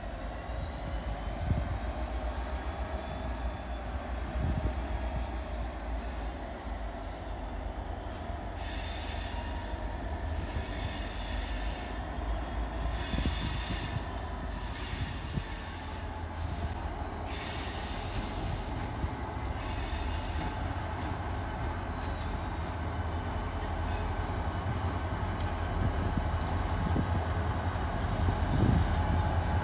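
Union Pacific diesel locomotives, three units, running slowly as they approach, their engines a low steady rumble that grows louder near the end. High metallic squeals from the running gear on the rails come and go through the middle.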